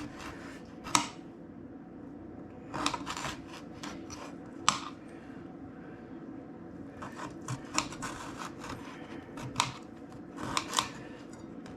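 A knife cutting limes into small pieces: a run of irregular sharp taps and clicks, several in quick succession in places.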